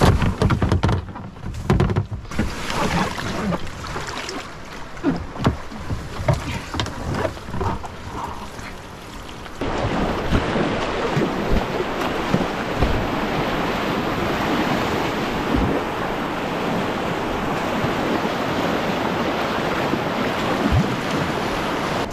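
Scattered knocks and bumps of a kayak being handled at the water's edge. About ten seconds in, these give way to the steady rush of a whitewater rapid breaking around the kayak as it runs through.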